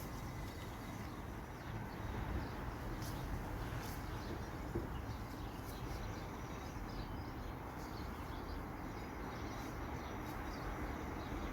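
Torque wrench being worked on motorcycle rack bolts: a few faint clicks and one small sharper click about five seconds in, over a steady low outdoor background with faint bird chirps.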